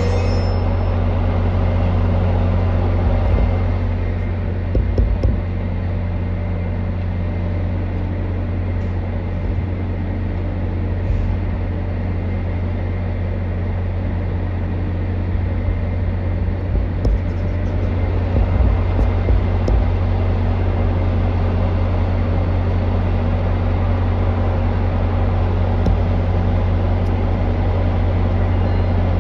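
Diesel commuter locomotive idling steadily, a deep low hum. A few brief knocks come about four to five seconds in and again past the middle.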